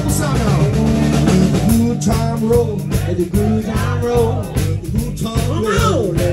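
Live blues band playing loud and steady: electric guitars with bending, gliding notes over a bass line and a regular drum beat.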